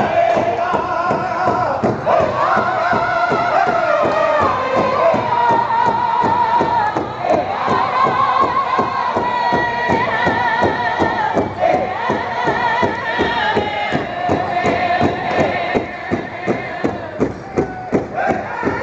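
Powwow drum group singing high-pitched in unison while beating one large shared drum together in a steady, fast beat. Near the end the voices drop back briefly and the drumbeats stand out on their own.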